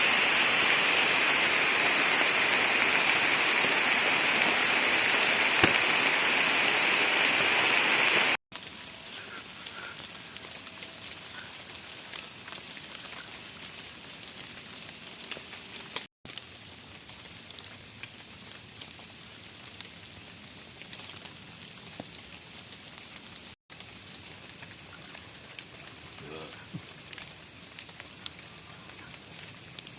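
Heavy rain falling as a loud, steady hiss for about eight seconds. The sound then cuts to a much quieter rain with scattered drips, broken by sudden cuts twice more.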